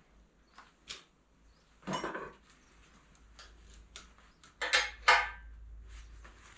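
Metal clinks and rattles as a wrench knocks against steel hydraulic hose fittings and the frame: a few scattered clinks, then two loud ones in quick succession about three-quarters of the way through.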